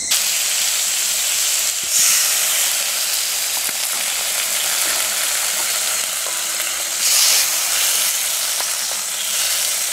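Sliced pork and onions sizzling as they stir-fry in a wok on a portable gas burner, stirred with chopsticks. The sizzle swells louder about two seconds in and again about seven seconds in.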